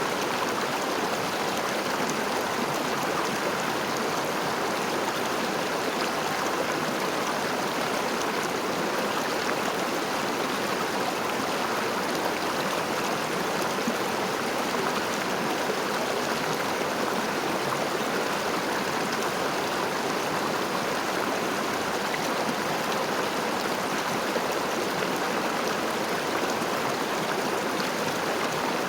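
River water flowing and rushing, a steady, unbroken stream sound.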